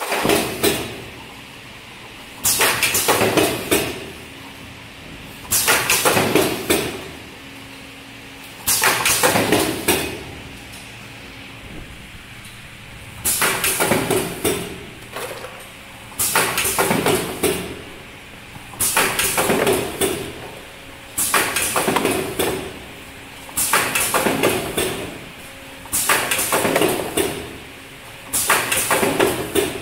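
Semi-automatic medicine carton packing machine cycling: a burst of mechanical clatter about a second long repeats roughly every two and a half seconds as each carton is formed, over a faint steady hum.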